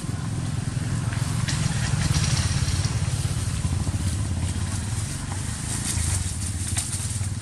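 Motorcycle engine idling steadily, a low even running sound with a fast fine pulse, while dry leaves crackle and rustle now and then under scampering monkeys.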